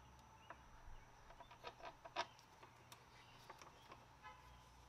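Near silence with a few faint clicks and taps as the plastic grille shroud is handled, the sharpest about two seconds in, and faint bird calls in the background.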